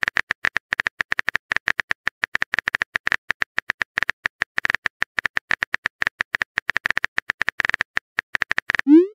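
Rapid, irregular clicking of a phone-keyboard typing sound effect, as a chat-story app plays while a message is typed, about ten taps a second. A short rising pop near the end marks the message being sent.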